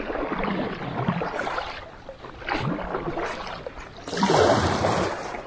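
Kayak paddle strokes splashing through river water, three surges of splashing and dripping, the last the loudest.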